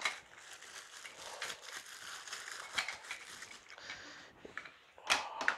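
Plastic rustling and crinkling as the parts of a plastic rotary drum vegetable grater are handled, followed by a few sharp clicks about five seconds in.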